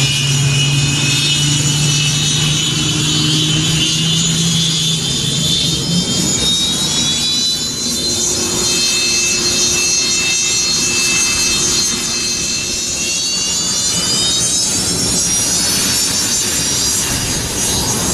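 Large aircraft's engines running at an air show, with a high whine that slides slowly down in pitch through the first part and climbs again near the end, over a low hum that fades out about five seconds in.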